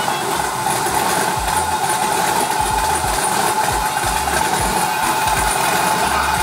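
Twin-turbo 6.0-litre LS2 V8 idling steadily on a freshly built truck still being tuned from a laptop.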